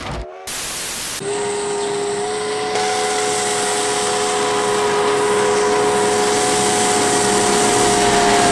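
A brief burst of TV static, then about a second in a steam locomotive's chime whistle, Sierra Railway No. 28's, opens into one long steady blast of several tones at once over a hiss of steam.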